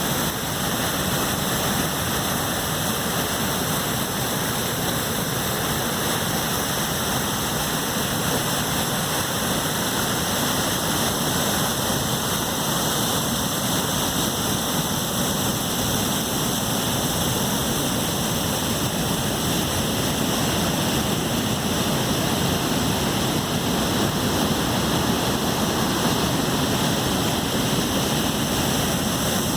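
Swollen river in flood pouring over a dam, a steady rush of water.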